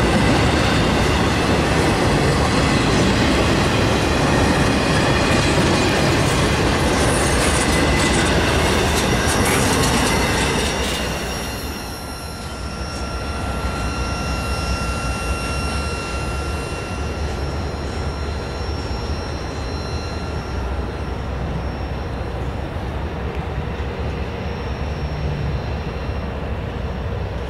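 Double-stack intermodal freight cars rumbling and clacking past close by on their steel wheels. About eleven seconds in the noise falls away as the last car draws off round a curve, leaving a thin steady squeal from the wheels over a low rumble.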